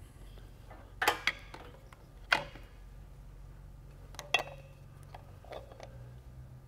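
Handful of sharp metal clinks and knocks, a couple with brief ringing, as a hydraulic ram is set on a steel bracket and its hose coupler is fitted.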